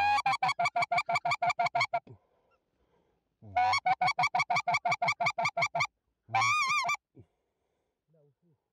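Goose call blown to lure geese: two rapid strings of short honks, about eight a second, then one longer wavering honk near the end.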